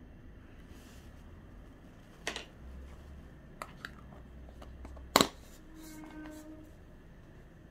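Quiet room with a few sharp clicks and taps of things being handled: one about two seconds in, two small ticks a little later, and a loud sharp click about five seconds in, followed by a short faint tone.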